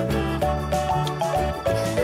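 Background music with a steady beat: a melody of short pitched notes over a bass line.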